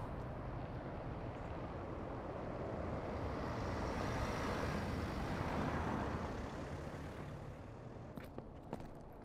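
A road vehicle passing by, its noise swelling to a peak midway and fading away over low traffic rumble. A few footsteps tap near the end.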